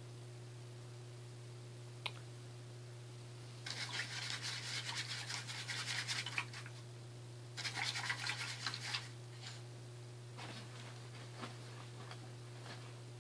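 Two bursts of rapid scratchy scrubbing, each two to three seconds long, with a sharp click before them and a few light clicks after, over a steady low hum.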